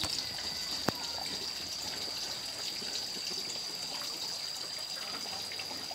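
Water trickling steadily, with a thin, steady high-pitched tone above it and one sharp click about a second in.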